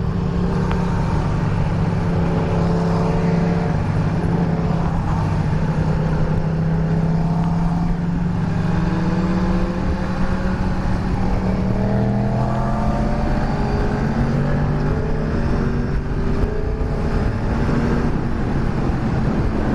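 Honda CBR600F's inline-four engine running steadily under way, its note holding level and then slowly rising in the second half.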